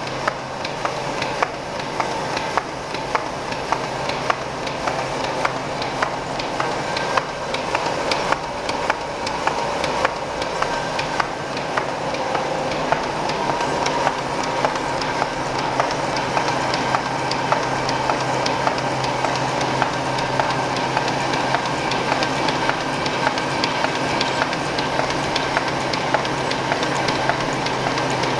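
ZF490A pocket-envelope making machine with peel-and-seal unit running at production speed: a continuous mechanical clatter of rollers and feed with rapid, regular clicks several times a second over a steady hum. It gets slightly louder through the first half.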